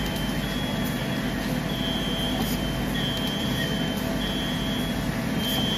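Automatic crystal sorting and test machine running with a steady hum from its vibratory bowl feeder, while a short high-pitched beep sounds on and off about once a second.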